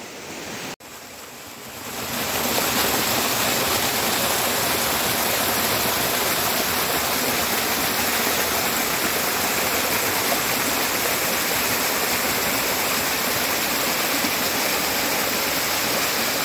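Small mountain stream cascading down a waterfall over mossy rocks: a steady rush of water. It swells up to full strength about two seconds in.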